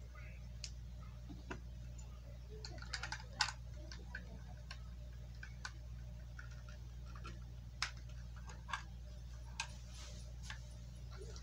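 Plastic Lego pieces clicking and tapping as they are handled and pressed into place: scattered light clicks, with a small cluster about three seconds in and a few single ones later, over a steady low hum.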